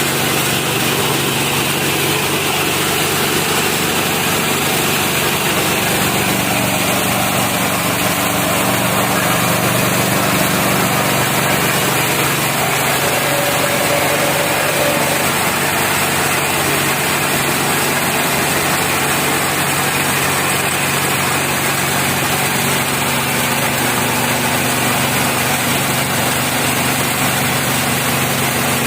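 Rice milling machine (KD-580S) driven by its 7.5 HP MGX-210 engine, running steadily at a constant engine speed with a continuous mechanical drone.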